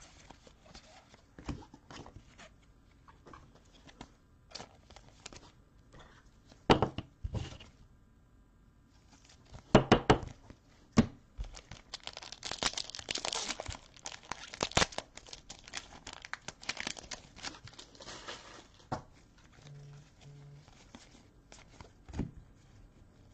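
Trading-card pack wrapper being torn open and crinkled for several seconds about halfway in, amid scattered clicks and taps of cards being handled.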